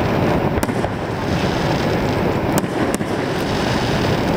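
Fireworks display ambience: a steady rushing roar with a few faint, sharp crackles spread through it.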